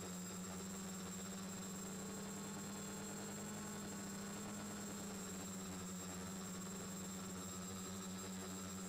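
Four Turnigy D2830 1000KV brushless motors and propellers of an X550 quadcopter holding a steady throttle in low flight, heard from the frame-mounted camera as a steady, slightly muffled hum with a thin high whine above it.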